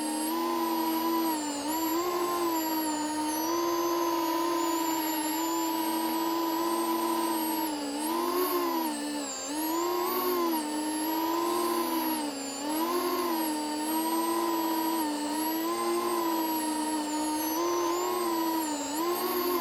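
FPV quadcopter's brushless motors and propellers, recorded on board, whining steadily, the pitch swelling and dipping again and again as the throttle changes.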